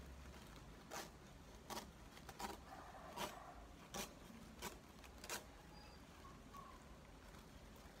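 Woven plastic sack crackling as it is handled on the ground: about seven short, crisp crackles spaced unevenly over the first five seconds, with a soft rustle between them.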